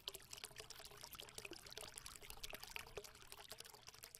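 Faint watery fizzing crackle, a dense run of tiny pops like liquid pouring or bubbling.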